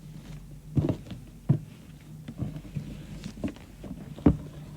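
Perfume gift box being handled and opened: several sharp taps and knocks of packaging, three of them louder, with light handling noise between, over a faint steady hum.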